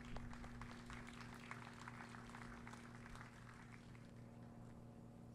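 Faint, scattered applause from a small audience, thinning out after about three seconds, over a steady low electrical hum.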